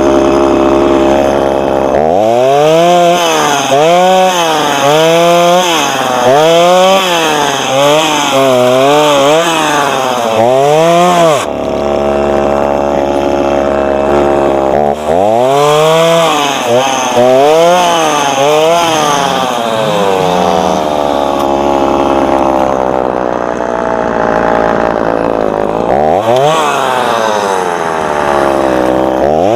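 Two-stroke chainsaw running steadily, then revved in quick bursts about once a second, its pitch rising and falling with each burst as it cuts through the branches of a felled conifer. After a steady stretch there are more bursts, then the engine speed sinks slowly over several seconds before a sharp rev near the end.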